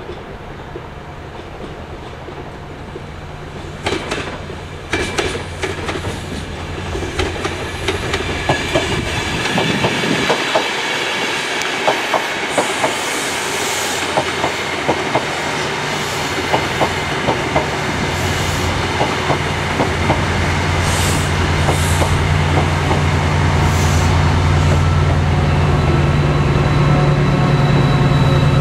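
Chiltern Railways Class 68-hauled Mark 3 passenger train passing close by: a rising rumble, then a run of sharp wheel clicks over the rail joints with a thin high squeal. A low engine drone grows louder near the end.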